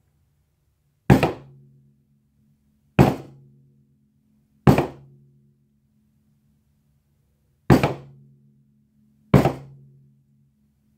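Hammer striking wet acrylic paint on a small canvas: five sharp whacks, one every two to three seconds, each leaving a brief low hum as it dies away.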